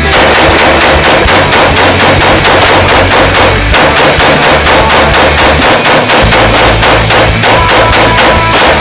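Loud heavy rock music driven by fast, evenly spaced drum hits, about five or six a second, over a sustained bass line.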